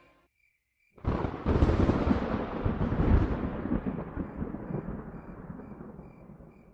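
A thunderclap about a second in, rumbling and slowly dying away over several seconds.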